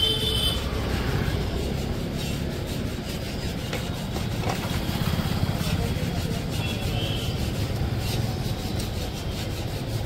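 A motor vehicle engine idling steadily, a low pulsing rumble.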